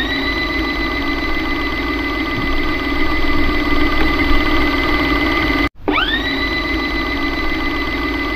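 VHS-style TV static sound effect: a loud hiss and hum with a whine that glides up and then holds at a steady pitch. It cuts off abruptly nearly six seconds in and starts again with the same rising whine.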